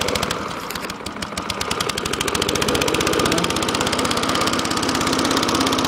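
Small single-cylinder 140 cc Suffolk engine on an old Atco 17B cylinder lawn mower, running just after starting on half choke. It gets louder over the first few seconds, then settles to an even run.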